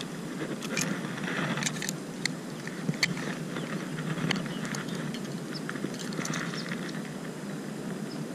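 Handling noise as a digital fish scale is held and readied: scattered light clicks and rustles over a steady low hiss.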